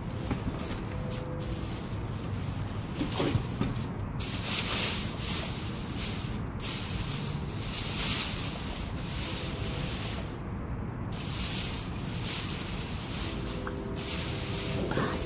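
Plastic trash bags in a dumpster rustling and crinkling in irregular bursts as they are handled, over a low rumble of wind on the microphone.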